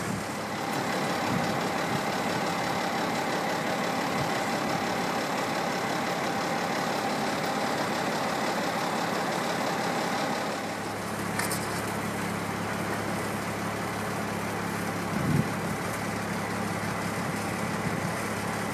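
A vehicle engine idling steadily, a constant low hum under street noise, with a short thump about fifteen seconds in.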